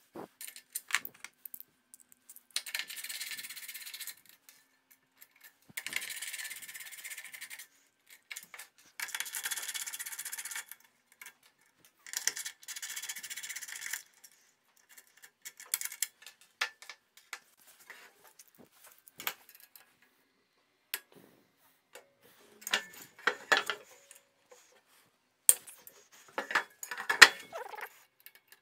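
Ratchet spanner clicking in four runs of a second or two each as the roller bolts on a table saw's crosscut sled are undone. Then metal clinks and knocks as the sled parts are handled and loose bearings and parts are set down on a wooden bench, loudest near the end.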